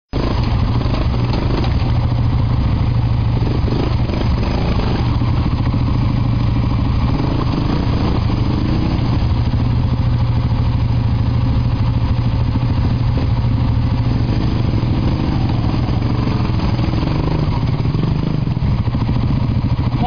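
Honda ATV engines running steadily as the quads crawl through a muddy creek bed.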